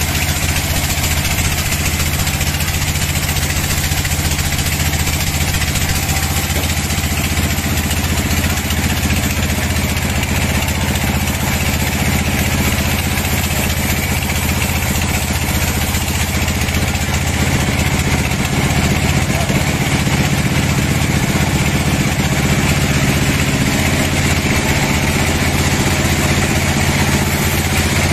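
Band sawmill running steadily, its blade cutting lengthwise through a large hardwood log over a low, even drone from the mill's drive; it gets a little louder partway through.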